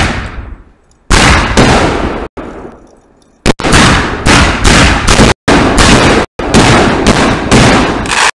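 Aerial fireworks going off close by: a rapid string of loud booms and bursts, about two a second, with a short lull a little after two seconds. The blasts are loud enough to overload the recording, which drops out briefly twice near the middle.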